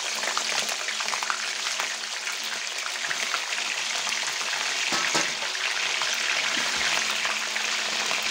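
Raw chicken leg pieces sizzling in a cup of hot cooking oil, just added to the pan: a dense, steady sizzle with fine crackling as the wet meat starts to fry, and a brief louder crackle about five seconds in.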